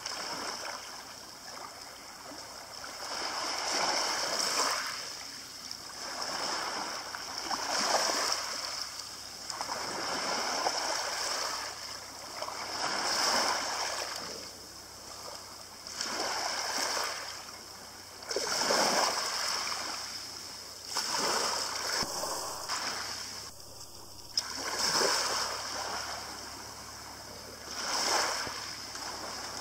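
Small waves breaking gently on a pebble shore and washing over the stones, one swell about every three seconds.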